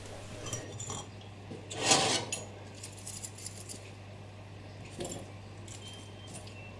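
Brass clock-movement parts clinking lightly as they are lifted out of a pot of shellite and set down on a rag, a few small metallic clicks, with a brief louder rustle about two seconds in. A steady low hum runs underneath.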